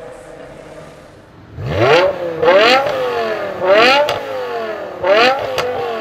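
BMW M5 E60's S85 5.0-litre V10 revved hard four times, each rev climbing quickly in pitch and falling back more slowly, with a few sharp cracks among them.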